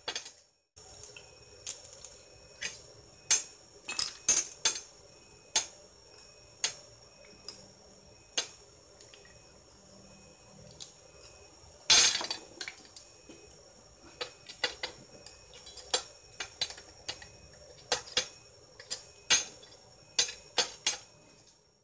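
Small steel ball bearings and a bolt clinking and knocking against a steel plate as they are handled, in irregular sharp clinks with one louder knock about twelve seconds in.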